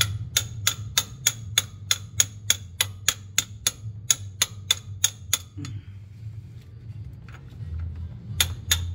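Ratchet wrench clicking in a steady run of about three sharp clicks a second while backing out the Toyota A750E transmission's internal wiring-harness bolt; the clicking stops about five and a half seconds in and starts again near the end.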